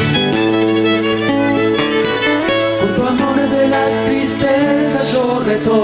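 Instrumental break of a folk song played live: a violin carrying the melody over strummed acoustic guitars and a small high-pitched strummed string instrument.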